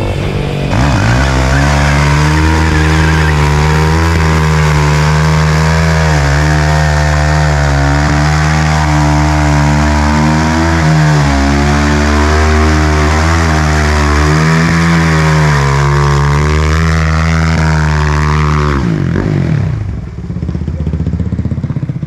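Suzuki RM-Z450 single-cylinder four-stroke engine with an Akrapovič exhaust, held at high revs with the pitch wavering slightly through a rear-tyre burnout. Near the end the revs climb, then drop off suddenly, leaving a quieter engine sound.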